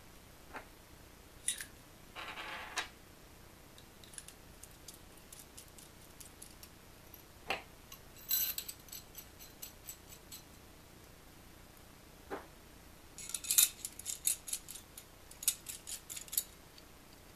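Small metal pieces of a nesting screwdriver set clicking, clinking and scraping against each other as they are handled and fitted together. Scattered single clicks, a short scrape about two seconds in, and runs of quick light clinks in the middle and near the end.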